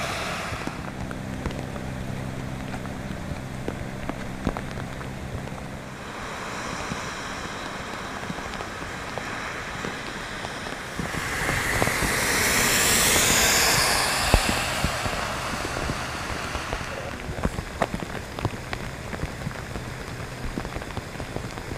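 Steady rain falling, with many scattered drops ticking close by. A low engine hum sits under it for the first few seconds, and a passing vehicle swells up and fades away about halfway through.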